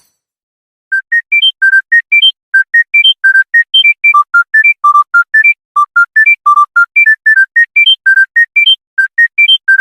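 A smartphone ringtone starting about a second in: a fast electronic melody of short, clear beeping notes, about four or five a second, in repeating rising runs.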